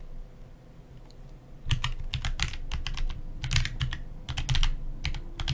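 Typing on a computer keyboard: a quick run of keystrokes that starts about a second and a half in, after a quiet moment.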